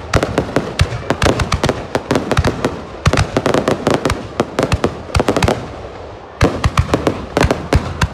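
Fireworks display firing a rapid barrage of launches and bursting shells, a dense run of sharp bangs and crackles. The bangs ease off briefly about six seconds in, then come again in quick succession.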